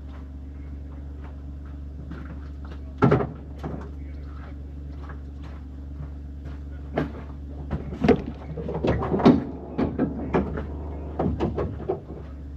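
Metal doors or access panels on farm machinery being opened and shut: one loud clunk about three seconds in, then a run of knocks and rattles in the second half, over a steady low hum.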